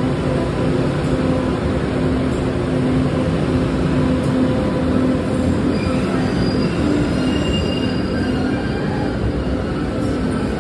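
MBTA Green Line light-rail train running past along the platform of an underground station. It makes a loud, steady rumble with a low hum, and thin high-pitched wheel squeals come in over the second half.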